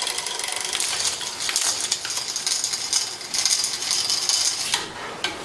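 Bicycle drivetrain running: the chain and cassette give a continuous fast mechanical clicking and whirring, with a brief dip near the end.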